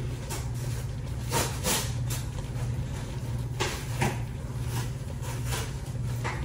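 Scattered knocks and rustling as a box of tortillas is handled and opened in a kitchen, over a steady low hum.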